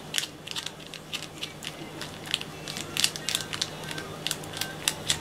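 A thin stick stirring tinted liquid resin on a plastic sheet, making a run of irregular small clicks and crinkles as it scrapes and presses the plastic. The resin is being mixed roughly to work air bubbles into it.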